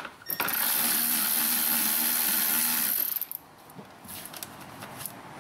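Cordless electric ratchet running steadily for about three seconds, then stopping, as it backs out a fastener on the air cleaner housing.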